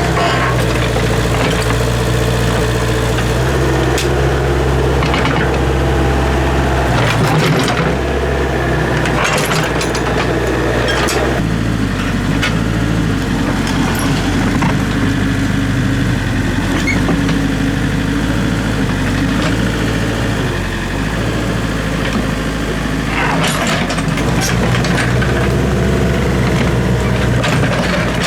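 Excavator's diesel engine running steadily, its note shifting a couple of times, with scattered knocks and clanks over it.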